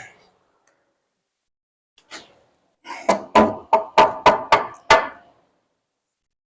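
Hammer blows on wooden framing: one light tap about two seconds in, then a quick run of about seven strikes in a little over two seconds.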